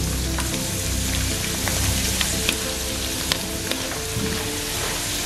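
Dried macaroni deep-frying in very hot oil: a steady dense sizzle with scattered small pops and crackles, the pasta puffing up as it fries. A wire mesh skimmer stirs through the oil.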